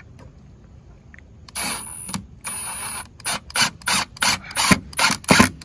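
Milwaukee FUEL cordless impact driver driving a wood screw into a board, with a high motor whine over the hammering. Two runs of about half a second come first, then a string of short bursts, about three a second.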